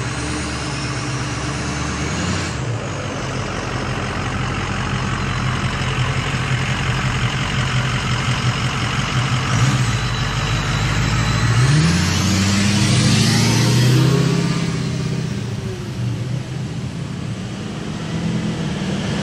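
A motor vehicle running steadily. About twelve seconds in, one drives past, its pitch rising and then falling as it goes by.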